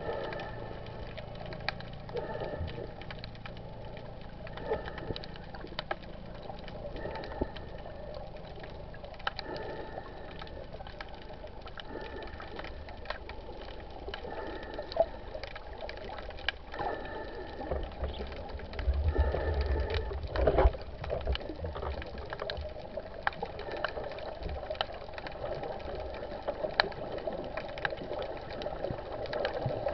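Underwater ambience picked up by a camera in its waterproof housing: a steady murmur scattered with sharp clicks, and a faint short tone repeating about once a second. A louder low rumble comes about two-thirds of the way through.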